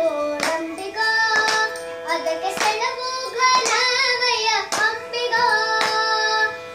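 Children singing a Kannada devotional song together over a steady drone, marking the beat with hand claps about once a second.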